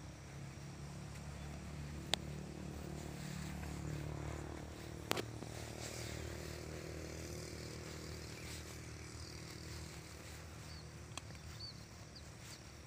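A low, steady engine hum that grows louder over the first few seconds and then slowly fades, with two sharp clicks about two and five seconds in.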